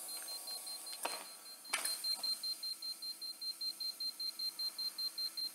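Handheld EMF meter (KMOON GM3120) beeping its alarm in rapid, even pulses of one high tone, about six a second, set off by the strong field at the 15 kV negative ion generator. Two handling knocks come in the first two seconds.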